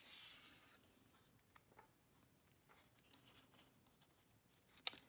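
Near silence with faint handling of small cardstock pieces on a tabletop: a brief soft rustle at the start, a few faint ticks, and a sharp tap near the end.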